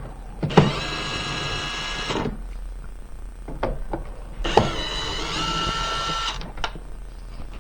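Cordless drill with a Phillips bit run in two bursts of about two seconds each, driving out screws from a generator's cover. Each burst starts with a click, and a few small clicks fall between them.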